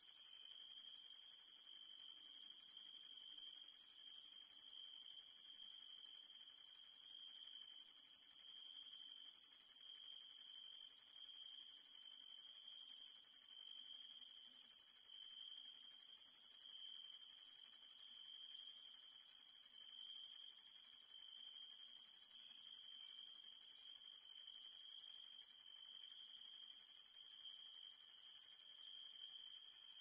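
Night insect chorus of crickets: a steady, unbroken high-pitched trilling in two layers. A very high shrill layer is the loudest, and a lower trill pulses slightly.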